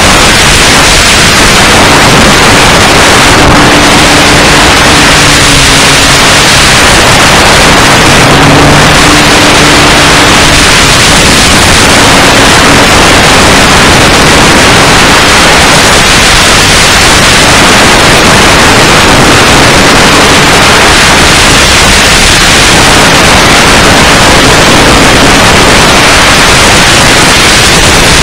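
Loud, steady, distorted noise like heavy static, picked up by an RC airplane's onboard fuselage camera microphone, with a faint low hum coming and going.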